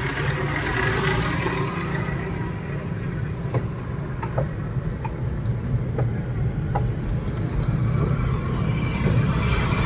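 Steady low rumble of a slow ride in an open vehicle on a paved road, with a few light clicks or rattles in the middle.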